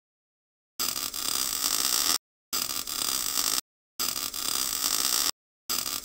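Synthetic hissing, buzzing cutting sound effect for an animated logo of letters being cut out in sparks, starting about a second in and coming in four bursts of just over a second each with short silent gaps between them.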